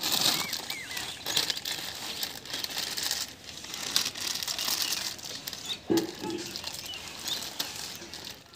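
Plastic bag crinkling and rustling as it is handled, an irregular run of crackles.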